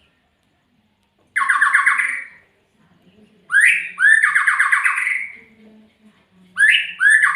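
Murai songbird giving loud, harsh, rattling calls in three bursts, the first about a second and a half in. The later two each open with a short rising note before a fast pulsed rattle lasting about a second.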